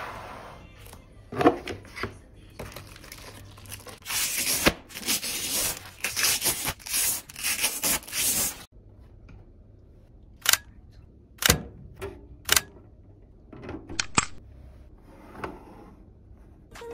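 Protective plastic film being peeled off clear acrylic panels, a long crinkling, tearing noise through the middle, followed by several separate sharp clicks and taps as the acrylic display box pieces are handled and fitted together.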